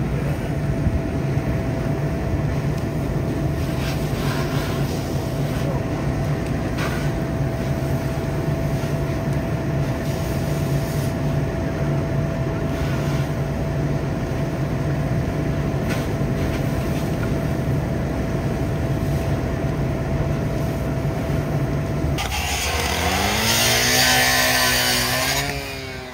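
Fire engine's diesel engine running steadily at a raised idle to drive its hose pump: a steady low drone with a faint whine. About 22 seconds in, loud hissing of hose water and steam on the burning car rises over it, and the engine's drone falls in pitch.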